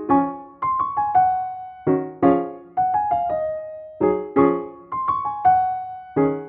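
Background music: a light piano tune of single notes and chords, each struck sharply and then fading, coming in quick phrases.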